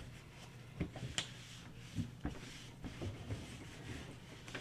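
Quiet handling of the resin printer's vat parts: a few light clicks and knocks about one and two seconds in, with faint rubbing between them.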